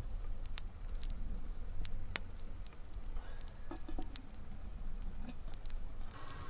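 Hot wood embers crackling, giving scattered sharp ticks and pops over a steady low rumble.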